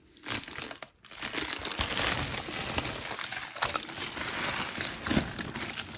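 Small zip-lock plastic bags of diamond-painting drills crinkling as they are pushed aside across the canvas's plastic cover film. It is a dense, continuous plastic crackle, after a short burst and a brief pause about a second in.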